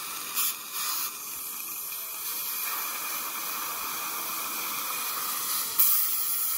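Steady hiss of dental suction, with short louder blasts of air from a dental air-water syringe about half a second in, again near one second and once near the end, drying the freshly etched teeth.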